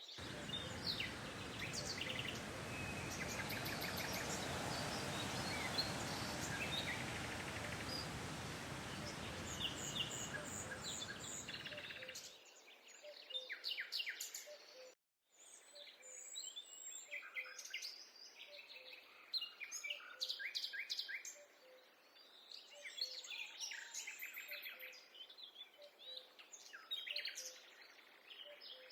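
Several small forest birds chirping and singing in quick repeated phrases. For roughly the first twelve seconds a steady rushing noise lies under them and cuts off suddenly. The birdsong then continues over a quiet background, with a momentary dropout a few seconds later.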